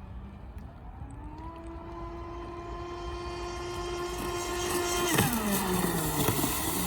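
Electric RC racing boat's Scorpion 5035 500 kV brushless motor whining, stepping up in pitch about a second in and holding steady while growing louder as the boat approaches. About five seconds in it is loudest and the pitch drops sharply as it passes, then the whine climbs again near the end.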